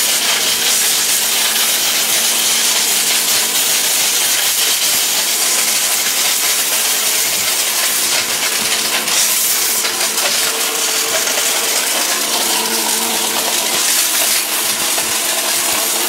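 A 1600-watt electric blender running steadily at full speed, grinding hard turmeric pieces in its stainless-steel jar to a fine powder.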